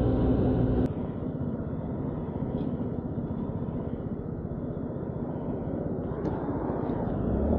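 Honda Ruckus scooter's small four-stroke engine running steadily, then dropping abruptly about a second in to a quieter idle as the throttle closes. Near the end it revs up again with rising pitch as the scooter pulls away.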